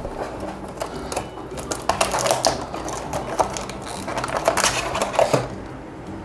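Crinkling and clicking of plastic packaging and small plastic toy figures being handled, in quick irregular bursts that are busiest in the middle of the stretch.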